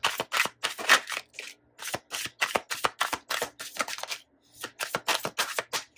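Tarot cards being shuffled by hand: a fast, uneven run of crisp card slaps and flicks, several a second, broken by two brief pauses.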